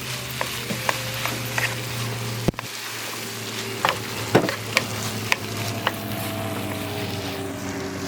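Food sizzling in hot oil in a frying pan, with a steady hiss and irregular sharp clicks and taps of a utensil against the pan.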